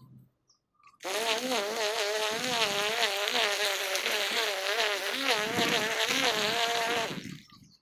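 String trimmer's small engine running at high speed with a high, slightly wavering buzz; it starts abruptly about a second in and drops away near the end.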